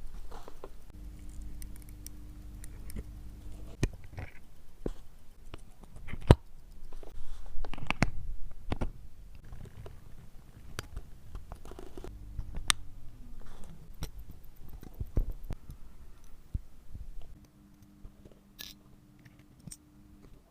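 Close-up handling of a watch and its leather strap during cleaning work: irregular clicks, taps and rubbing, with a low steady hum that starts and stops three times.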